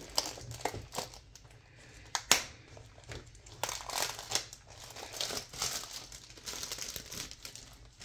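Plastic trading-card pack wrapper crinkling and crackling in irregular bursts as it is opened and handled.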